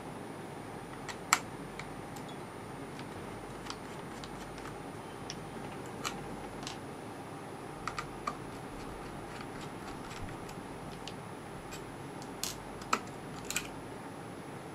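Scattered small clicks and taps of a screwdriver and fingers on the plastic HP Officejet Pro 8100 printhead as its green contact circuit board is unscrewed and lifted off, the sharpest click about a second in. Underneath runs a steady hiss with a thin high whine.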